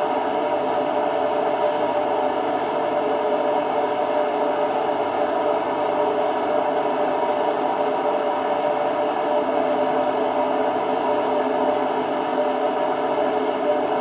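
Indesit IWD71251S washing machine with its drum spinning at steady speed: a constant rough whir with several held tones that does not change. The noise on spin is the sign of drum bearings starting to go.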